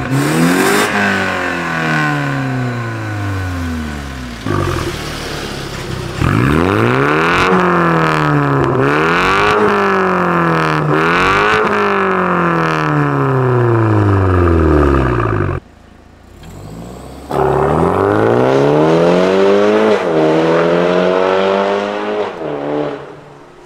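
BMW 430i's B48 turbocharged 2.0 L four-cylinder breathing through a Fi valvetronic catback exhaust with catless downpipes, blipped repeatedly from idle so the note rises and falls with each rev. A few sharp cracks come between the revs. The revs turn much louder about six seconds in, drop back to a short idle a little past the middle, then climb again before fading near the end.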